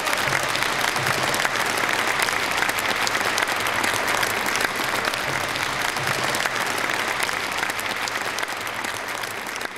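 Audience applauding: many hands clapping in a dense, steady patter that slowly dies down near the end.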